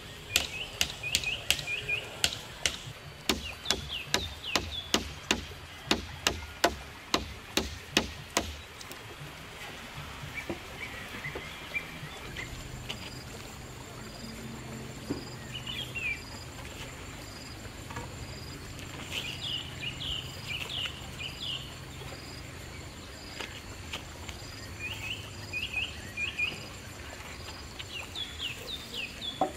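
A quick run of sharp knocks, about two or three a second, for the first eight seconds or so, with birds chirping. After that, birds chirping on and off over a steady high whine and a low hum.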